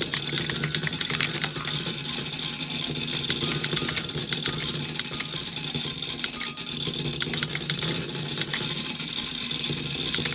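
Glass marbles rolling and clattering through a plastic block marble run: a dense, continuous rattle of small clicks over a steady low hum.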